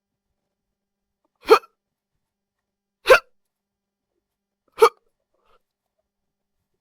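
A person hiccuping three times, each a short sharp "hic", evenly spaced about a second and a half apart.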